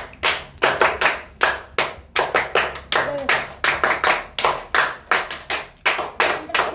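Group of boys clapping their hands in a steady rhythm, about three claps a second.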